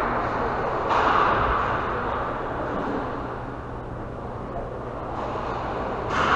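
Echoing ambience of a roller hockey game in a large rink: a steady low hum under a wash of distant rink noise that swells about a second in and again near the end.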